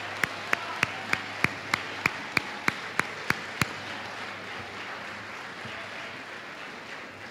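Audience applauding, with loud, evenly spaced claps about three a second standing out over it. The claps stop about three and a half seconds in, and the applause then dies away.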